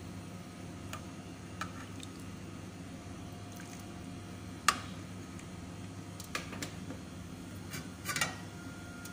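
Metal ladle knocking and scraping against a stainless steel cooking pot as soup is ladled out: a few scattered light clinks, the sharpest about halfway through and a short cluster near the end.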